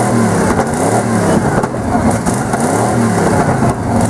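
Big-block V8 of a Ford F-150 monster truck revved in a series of quick blips while standing still, the engine pitch rising and falling about six times.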